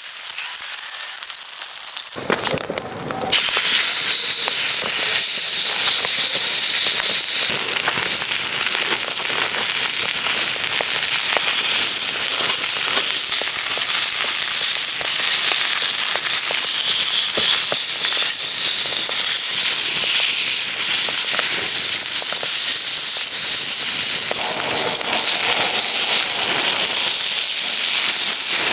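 Beef sizzling in a hot pan: a dense hiss full of small pops that starts suddenly a few seconds in and then holds steady.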